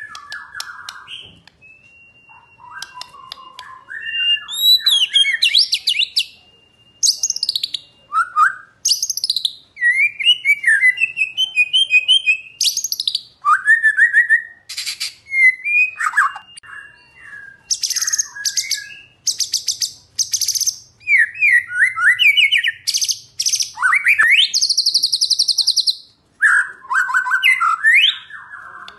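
White-rumped shama (murai batu) singing a long, varied song. It mixes loud rapid high trills, rising and falling whistled notes and chattering phrases, with a steady held whistle a couple of seconds in.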